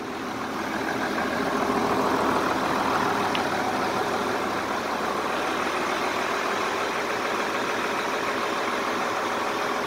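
Diesel engine of a trailer-mounted movie generator running steadily at a constant speed, growing a little louder about two seconds in.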